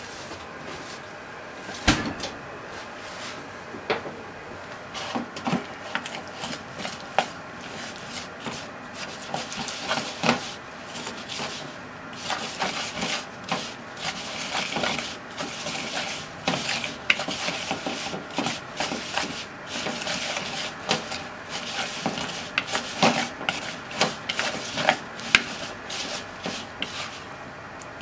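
Wooden chopsticks stirring scallop mantles into potato starch in a plastic bowl: irregular taps and clicks against the bowl with scraping and rubbing. The taps are sparse at first and come thick and fast after several seconds.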